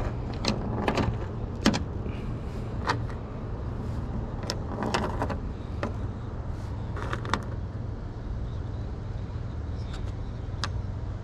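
Scattered light clicks and knocks of parts and hand tools being handled during work on a Jeep XJ, over a steady low hum.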